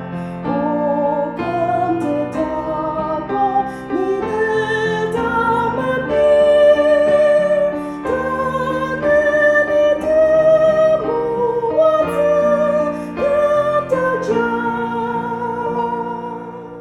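A song: a singer holding long notes with vibrato over instrumental accompaniment, cutting off suddenly near the end.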